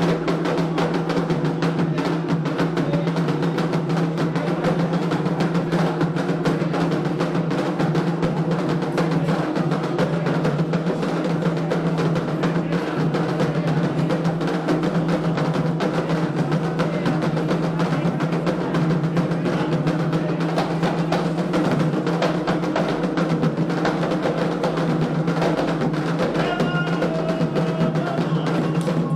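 Candomblé ceremonial drumming: atabaque hand drums playing a fast, unbroken rhythm with a sharp clacking accent on top.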